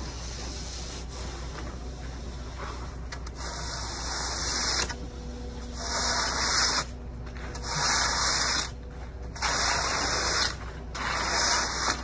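A screed bar scraping across wet concrete in repeated back-and-forth strokes. Each stroke lasts about a second and they come roughly every second and a half, starting a few seconds in, over a steady low hum.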